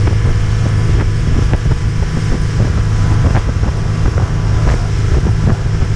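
Inflatable boat running at speed over choppy water: a loud, steady low motor drone with wind buffeting the microphone and frequent short slaps of water against the hull.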